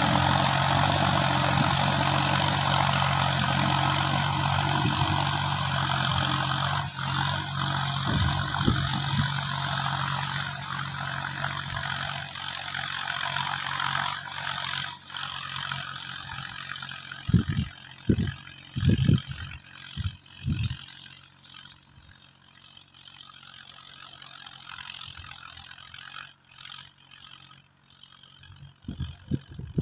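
Solis 4415 two-wheel-drive tractor's diesel engine running steadily under load while pulling a tillage implement through stubble, fading as the tractor moves off into the distance. A few short, low thuds come about two-thirds of the way through.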